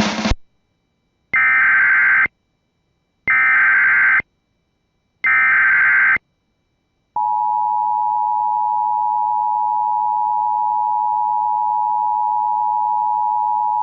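Emergency Alert System (EAS) tones: three one-second bursts of SAME header data, a harsh digital screech, about a second apart, encoding an administrative message (ADR). About seven seconds in, the steady two-tone EAS attention signal (853 and 960 Hz together) begins and holds.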